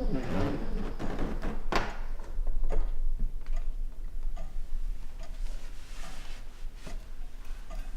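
Soft regular ticks less than a second apart, with a louder sharp click about two seconds in, over a steady low hum.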